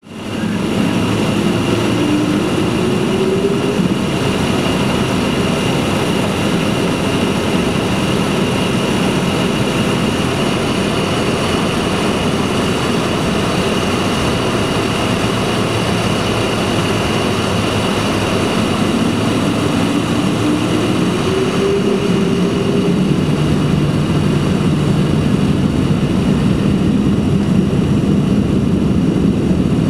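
Boeing 767-300 jet engines heard from inside the cabin while taxiing: a steady rush of noise with a high steady whine. A lower tone rises in pitch twice, once a couple of seconds in and again about two-thirds of the way through.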